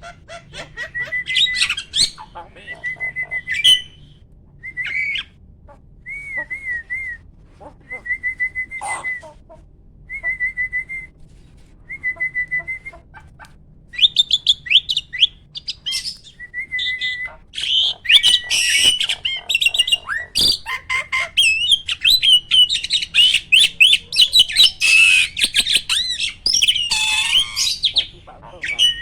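Hybrid jalak starling singing: a string of short whistled phrases with gaps between them, then from about halfway a fast, continuous chattering warble that gets louder.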